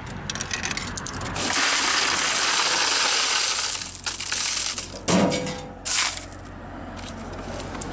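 Bulk ice vending machine dispensing loose ice cubes into a plastic bucket: a few mechanical clicks, then a rushing clatter of ice pouring down the chute for about two and a half seconds. About five and six seconds in come two louder clatters of ice spilling onto a metal grate.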